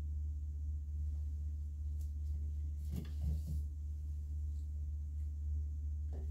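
A steady low hum, with a few soft rustles and light knocks, the clearest about three seconds in, as a cluster of antler reishi mushrooms is set down in a wooden bowl.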